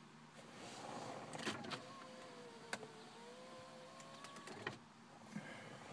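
Car power window motor running for about four seconds, its whine dipping in pitch and rising again, then stopping with a knock as the glass reaches the end of its travel.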